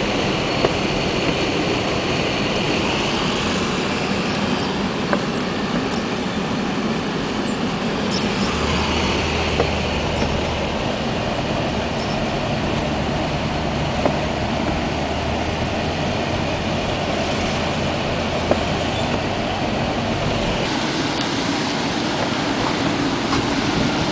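Steady running noise of a motor vehicle, with a low steady hum through the middle stretch, a few light clicks and faint high chirps.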